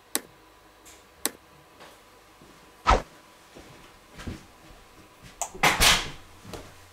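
A few sharp clicks and knocks, a thud about three seconds in, and a louder rustling rush near the end: the sounds of a person moving about and handling things indoors.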